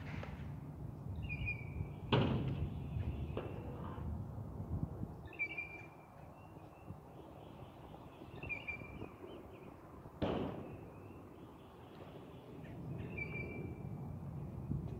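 Kick scooter wheels rolling on concrete, swelling and fading as the rider moves around. Two sharp clacks, about two seconds in and again about ten seconds in, sound like the scooter hitting the ground. Short bird chirps repeat in between.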